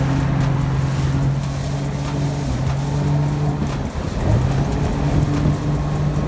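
Jet ski engine running at speed, a steady drone over rushing wind and water. Just before four seconds in the throttle eases off briefly, then the engine pitch climbs back up as it picks up speed again.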